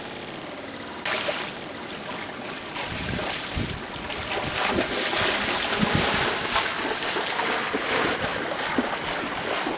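Wind gusting on the microphone over choppy water lapping in the shallows, the gusts buffeting harder from about three seconds in.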